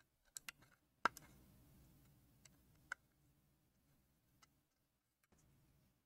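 A handful of short, sharp clicks and taps from a precision screwdriver and tiny screws being handled on the bench; the loudest comes about a second in, another near three seconds. A faint low hum lies underneath.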